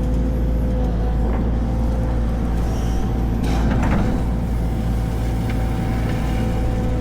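Heavy diesel construction machinery running steadily: a deep engine rumble with a steady whine above it, and a brief louder noise about halfway through.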